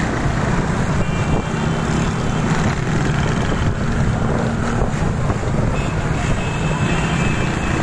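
Motorcycle engines running steadily among many riders, with wind rushing over the microphone of a moving motorcycle.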